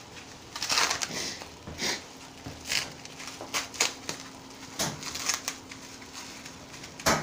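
Bubble wrap crinkling and crackling in the hands as it is unwrapped, in irregular bursts, with a sharper crackle near the end.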